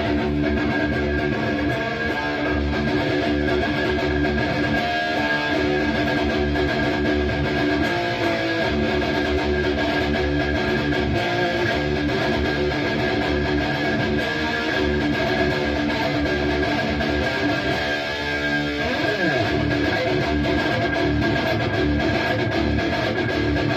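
High-gain distorted electric guitar playing a heavy metal riff through a Bogner Uberschall preamp module, its sag control set fully to the raw side, which gives a raw, rough tone. About three-quarters of the way through, a pitch slide cuts across the sustained chords.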